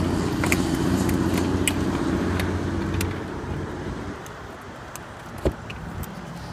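Steady mechanical hum of running rooftop HVAC equipment, dying away about three to four seconds in, with scattered light clicks and a single knock near the end.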